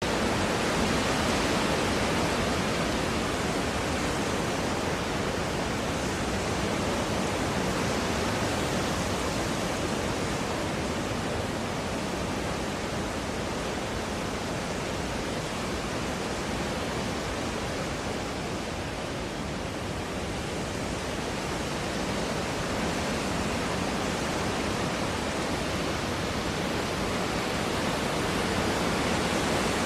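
Steady rushing noise with no clear pitch: wind and propeller wash buffeting the microphone of a GoPro carried on a flying FPV quadcopter.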